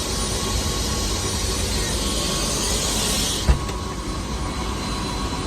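Helicopter engine and rotor noise, a loud steady drone with a high hiss on top. About three and a half seconds in there is a thump and the high hiss drops away suddenly while the low drone goes on.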